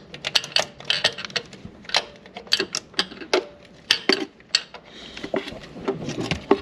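Irregular sharp metallic clicks and clinks of a hand tool working a small mounting bolt, a few a second with short pauses.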